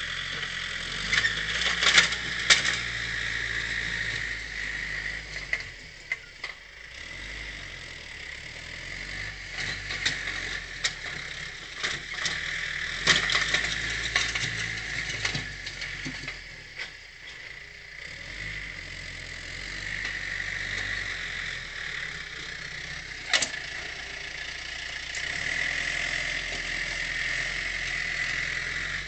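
John Deere compact tractor with a front-end loader running at work, its engine note swelling and easing off several times as it moves and works the loader, with a few sharp knocks.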